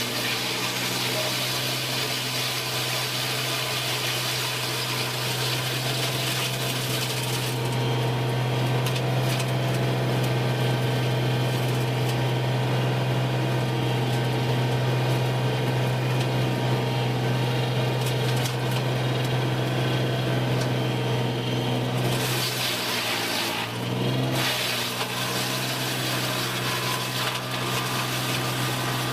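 Wood-processing machinery running with a steady hum; a high hiss over it drops away about eight seconds in and comes back briefly near the end.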